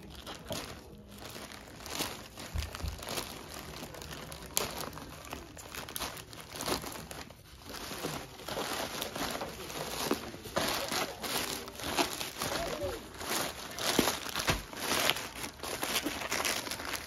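Parcel packaging being unwrapped by hand: irregular crinkling and rustling of wrapping material, busier and louder in the second half.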